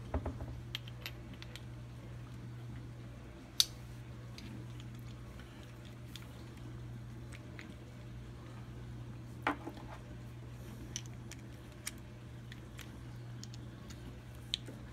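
Kawasaki KE100 transmission gears and shafts clinking and clicking against each other and the crankcase as the gear cluster is worked loose and lifted out by hand: scattered sharp metallic clicks, the loudest about three and a half seconds in and another near nine and a half seconds, over a steady low hum.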